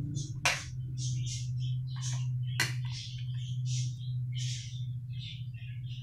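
A metal ladle clinks twice against a pot of steaming vegetable soup, about half a second and two and a half seconds in, over a steady low hum. Small birds chirp in short, frequent calls throughout.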